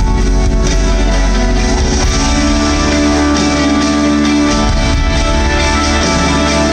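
Live rock band playing a slow song, with electric guitar to the fore over drums and bass. The sound is loud and steady.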